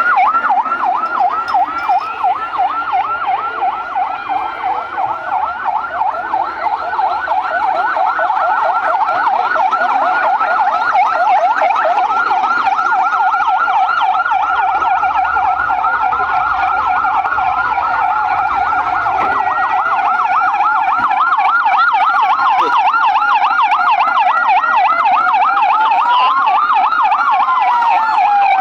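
Emergency vehicle sirens: a loud yelp siren cycling rapidly up and down, about five times a second. About sixteen seconds in, a second siren joins with a slow wail that rises and falls every couple of seconds.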